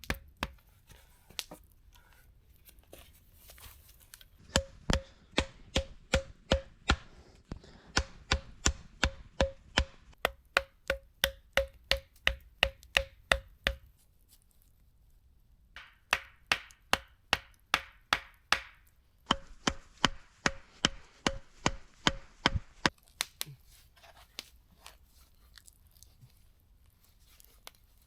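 Wood being chopped with a bladed tool: two long runs of quick strikes, about three a second, each with a slight metallic ring, with a short pause between the runs.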